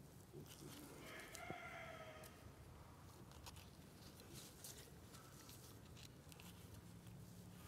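A chicken calls once, faintly, for about a second, starting a little after a second in. Around it is near quiet with light scattered clicks.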